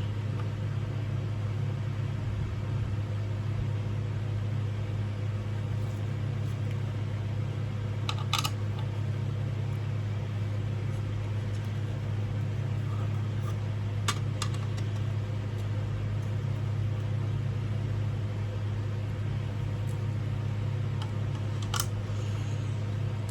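A steady low hum, with a few sharp clicks and taps now and then, like small parts being handled during fan assembly.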